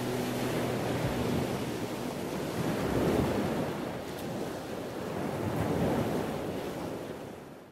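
Ocean surf: waves washing in slow swells, two of them building to a peak, then fading out at the end.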